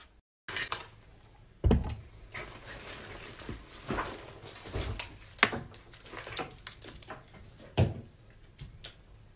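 Rummaging and rustling through a backpack at a wooden desk, with three sharper knocks of things being handled and set down, about two, five and a half and eight seconds in.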